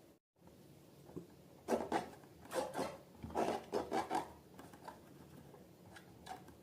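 Close-up slime-making handling noises: a run of short rubbing, sticky sounds, clustered from about one and a half to four seconds in, with a few fainter ones after, following a brief total dropout at the very start.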